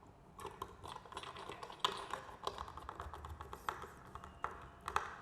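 Irregular clicks, taps and small rattles of a camera mounting bracket being handled and fitted onto a bird-feeder hanger.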